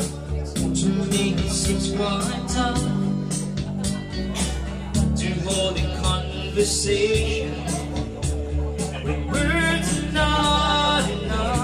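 A singer sings a song over music with a steady beat and a bass line. The voice comes through most strongly near the end.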